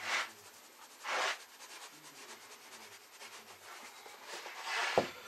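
Fine limestone ballast shaken out of a plastic shaker bottle onto a model railroad layout: three short hissing bursts of falling grit, then a sharp tap near the end.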